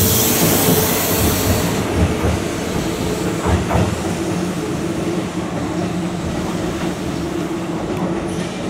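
Sanyo 6000 series electric train pulling out of the station, the last car passing close with loud rolling and hissing noise for the first couple of seconds. The sound then grows gradually fainter as the train draws away around a curve, with a steady motor hum and a brief squeal about three and a half seconds in.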